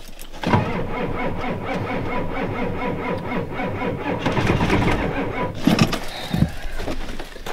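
Starter cranking the cold Ford 7.3 IDI diesel V8 for about five seconds without it catching, then stopping. The batteries are weak and the owner suspects the fuel has gelled in the cold.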